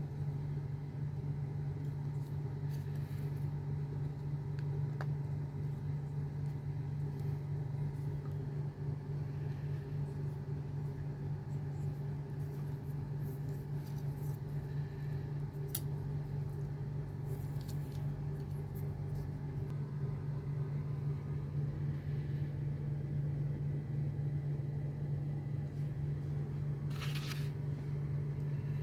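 A steady low hum at an even level, with a few faint clicks scattered through it and a short rustle near the end.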